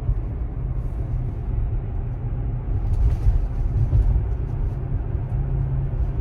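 Steady low rumble of tyre and road noise inside the cabin of a moving Tesla Model X.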